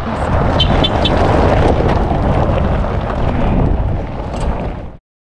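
Wind buffeting the microphone: a loud, rumbling rush of noise that cuts off suddenly near the end, with three quick high chirps about a second in.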